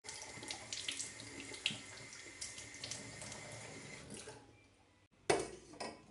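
Kitchen tap running, water splashing into an enamel kettle, fading out about four seconds in. Near the end comes a sharp knock, the loudest sound, and then a lighter one as the enamel kettle is set down on a wooden table and its lid handled.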